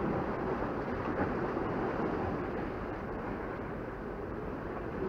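Steady rushing of sea waves washing against a rock breakwater, with wind noise on the microphone.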